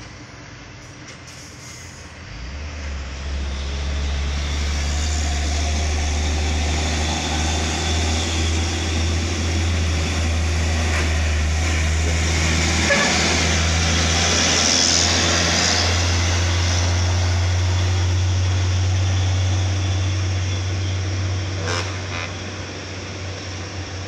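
Heavy loaded truck's diesel engine working hard up a steep, sharp bend. It grows louder over the first few seconds as the truck nears, holds through the middle as it passes close, then eases off near the end.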